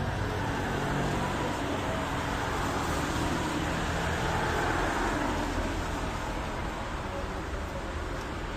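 Road traffic on a wet street: a passing vehicle's tyres hiss on the wet surface, swelling to loudest about four to five seconds in and then fading, over a steady low traffic rumble.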